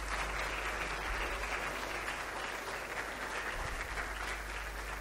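Audience in a lecture hall applauding steadily, a mass of hand claps.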